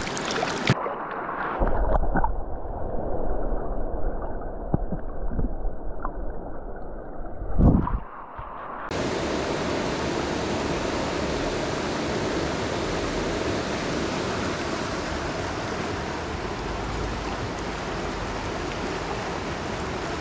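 Mountain trout creek rushing over rocks. For the first several seconds the water sounds dull and muffled, with a loud splashing surge near eight seconds, then it turns to a steady, even rush of flowing water.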